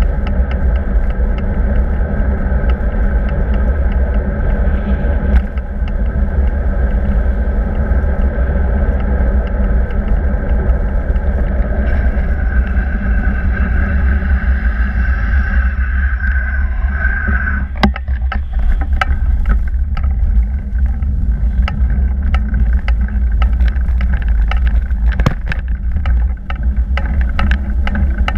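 Wind buffeting on the microphone of a bike-mounted camera, with tyre and road rumble from the bicycle rolling along. A high whine builds in the middle and cuts off with a click a bit past halfway. After that the ride is rougher, with frequent small knocks and rattles.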